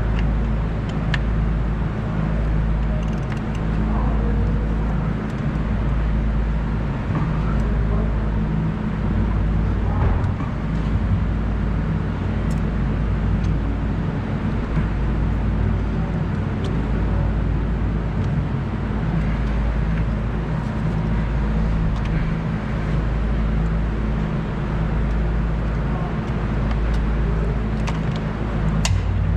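2005 Ford Taurus engine running steadily, with an uneven low rumble underneath; the pitch shifts slightly near the end.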